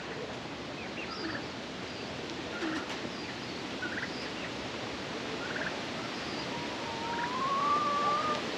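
Coop birds, chickens and pigeons, giving scattered short calls every second or two over a steady rain hiss, with one long drawn-out rising call near the end.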